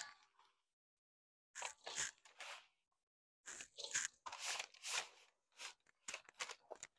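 Quiet, irregular crunchy scraping as a dry granola mix of oats and pecans is scooped and spread out on a baking sheet, starting about a second and a half in and going on in short bursts.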